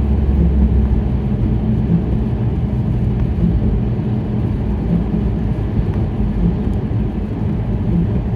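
Inside a moving car's cabin in heavy rain: steady low rumble of the car's worn tyres on the wet road, with a faint soft pulse about every second and a half. The rumble is heaviest in the first second.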